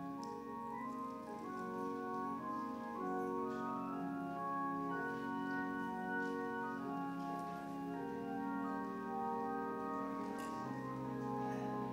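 Organ playing slow, sustained chords, the notes held and changing about every second.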